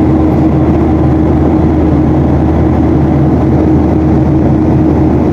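Loud, steady engine noise with a constant droning hum, cutting off suddenly near the end.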